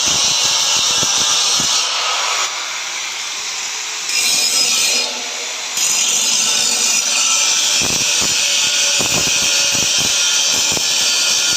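Handheld angle grinder grinding down a weld bead, a loud steady hiss of abrasive disc on steel. It eases off twice in the middle, as if the disc comes off the work for a moment, then bites again.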